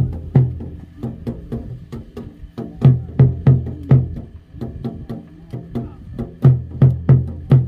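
Drums beating a rhythm: runs of about four heavy strokes with a deep thump, roughly three a second, between lighter, sharper strokes.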